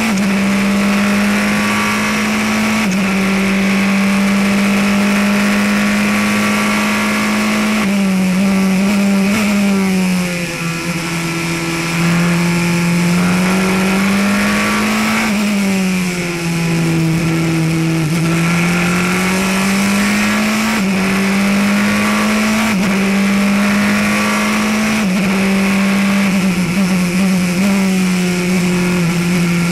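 Praga R1T race car's engine heard from inside the cockpit at race pace. Its pitch steps up and down as the driver shifts, and it sweeps down twice, about 8 and 15 seconds in, as the car brakes and downshifts for corners. Wind and road noise lie underneath.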